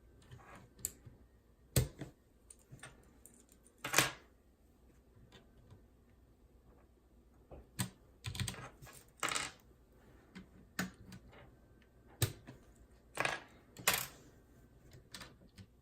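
Plastic keycaps being handled and pressed onto the mechanical switches of a Ducky One 2 Mini keyboard: scattered sharp clicks and clacks at irregular intervals, the strongest about four seconds in and again near the end.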